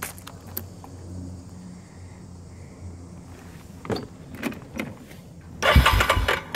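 Electric starter briefly cranking the 2014 Yamaha Grizzly 450's single-cylinder engine in a burst of a little under a second near the end, after a few clicks at the controls.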